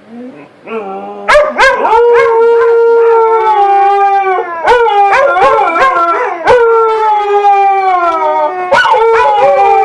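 Two dogs howling together on command, long drawn-out howls that slide slowly in pitch, starting about a second in.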